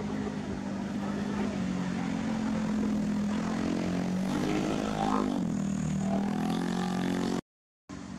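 A motor engine running steadily, its pitch dipping and then rising again about five seconds in; the sound cuts off abruptly near the end.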